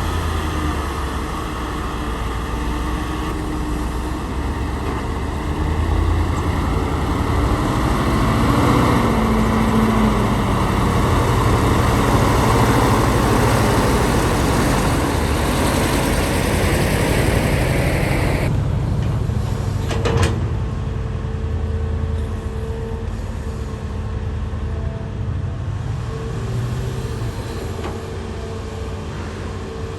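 Excavator diesel engine and hydraulics working under load while digging, a loud steady din. About eighteen seconds in the noise drops suddenly, leaving the engine running more lightly with a thin steady whine, and a sharp knock follows a couple of seconds later.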